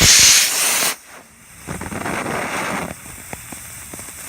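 Model rocket motor firing on a static burn: a loud rushing hiss for about a second, easing to a softer rush until about three seconds in, then a few light ticks.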